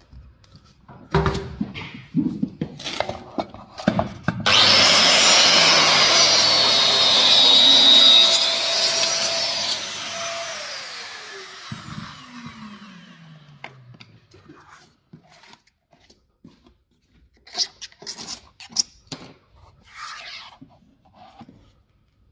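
An electric power tool starts suddenly and runs at full speed, cutting, for about five seconds, then is switched off and its motor spins down with a steadily falling whine. Handling knocks come before it and scattered clicks after it.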